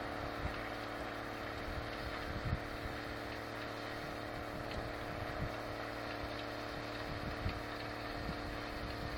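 Harvest machinery running steadily: a constant engine drone with a steady hum and a few faint low thumps.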